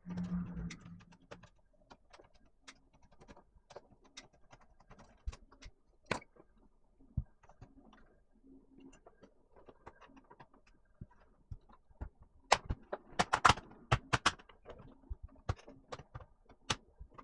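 Scattered small clicks and taps of a laptop being taken apart by hand: screws and plastic case parts handled and set down, with a quick run of louder clicks about three-quarters of the way through.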